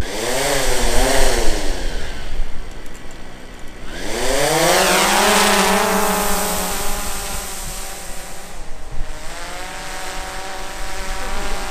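DJI Phantom quadcopter's motors and propellers whining as it lifts off and hovers. The pitch wavers up and down at first, rises steeply about four seconds in as the motors speed up, then holds fairly steady.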